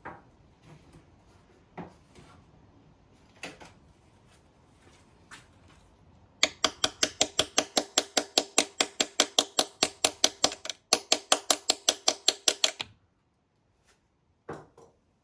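Hammer tapping rapidly on a T30 Torx bit and socket seated in a corroded automatic-transmission plug: a fast, even run of ringing metal-on-metal taps, about six a second, lasting some six seconds with a brief break partway. The tapping drives the bit into the corrosion-clogged plug head.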